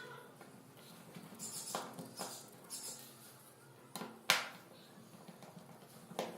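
Light clicks and scraping of a small screwdriver on the screws and plastic body of a Xolo Era 2X phone as it is unscrewed, with one sharper click about four seconds in.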